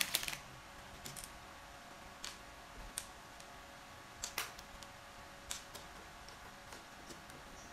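Scattered light clicks and taps of small hard plastic game pieces being handled and fitted into place, about eight separate clicks over a quiet background.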